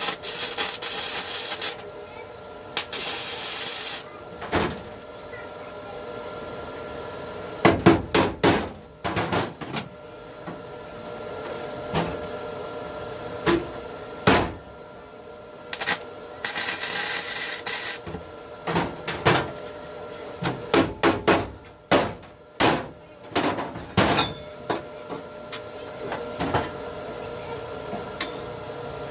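Irregular hammer blows and knocks in a workshop, some in quick clusters, with a few short bursts of hiss.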